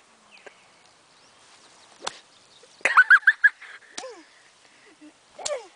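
Sharp clicks of a toy golf club striking at a ball on grass. About three seconds in, the loudest sound: a quick run of four or five short, high, squeaky calls.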